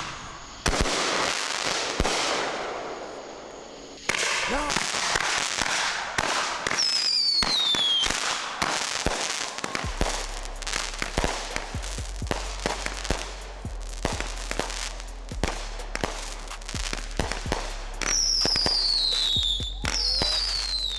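Fireworks display: big aerial bursts trailing off into crackle, then a dense string of sharp cracks. Several whistles slide down in pitch among the cracks.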